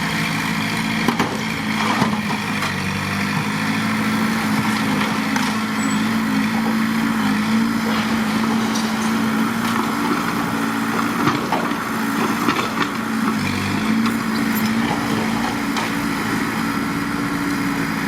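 Heavy diesel engine of an earthmoving machine running steadily, its pitch holding nearly level, with a few faint knocks over it.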